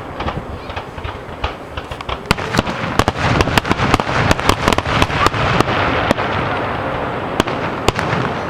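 Fireworks going off in rapid succession: many sharp bangs and reports over a continuous crackling rumble, densest around the middle.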